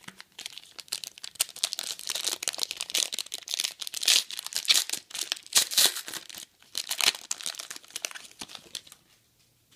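Foil wrapper of a trading-card pack crinkling and tearing as it is opened by hand: a dense crackle that stops about a second before the end.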